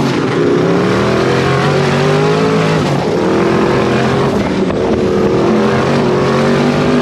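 Twin-turbo sand car engine accelerating hard at full throttle through the gears. The pitch climbs, drops back at each gear change and climbs again several times, over rushing wind noise.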